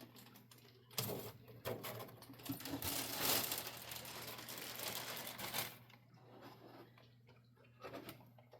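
Rustling and clicking of packaging as an RC airplane's cowl is unwrapped and handled, busiest from about a second in until near six seconds, then only faint handling sounds.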